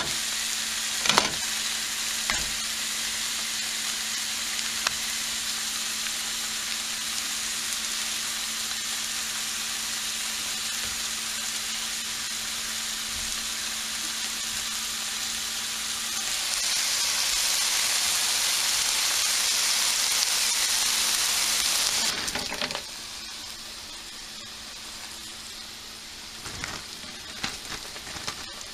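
Chicken, vegetables and tofu sizzling in a hot skillet: a steady frying hiss that swells louder for several seconds past the middle, then settles to a quieter sizzle. A couple of sharp knocks near the start.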